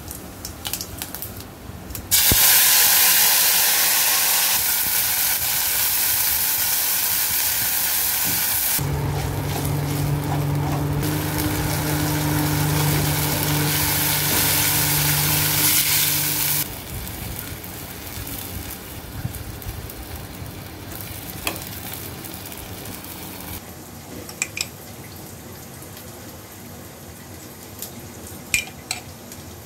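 Hot oil sizzling loudly in a steel kadai as a potato curry fries on a gas stove. The sizzle starts about two seconds in and carries a steady low hum for part of the way, then dies down to a quieter frying sound. A few light clinks of a steel spoon come near the end.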